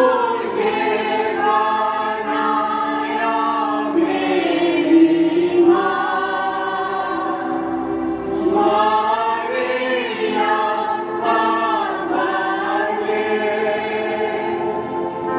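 Choir of voices singing a devotional hymn, with long held notes.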